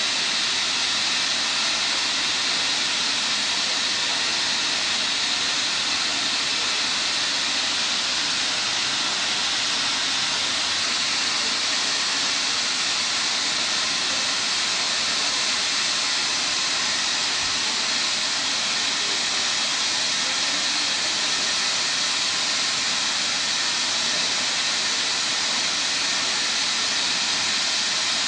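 Natural gas escaping under pressure from a buried gas pipe ruptured by an excavator: a loud, steady hiss that does not change.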